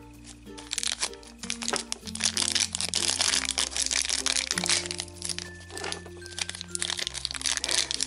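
Crinkling and crackling of a thin toy wrapper being pulled apart by hand to free a small figure, over background music.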